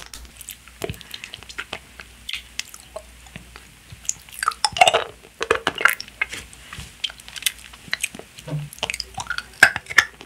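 Close-up wet mouth sounds of a hard beer-flavoured lollipop being sucked and licked: a string of short smacks and clicks, busiest in the middle of the stretch and again near the end.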